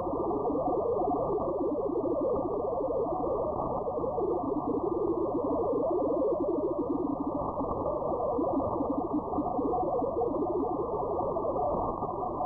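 Upper-sideband audio from an RTL-SDR receiver (R820T with upconverter) tuned to 40-metre digital signals: Olivia 8-250 data tones stepping rapidly in pitch, with other digital-mode signals and band hiss, steady throughout.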